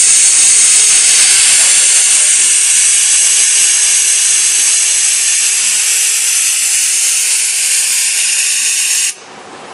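Compressed air hissing steadily from the pneumatic vacuum suction gripper on a Denso robot arm while it holds a part, cutting off abruptly about nine seconds in.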